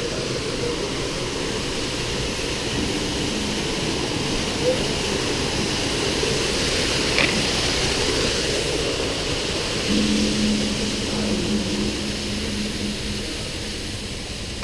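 Artificial waterfall splashing down rockwork into a pool: a steady rushing that swells toward the middle and fades again.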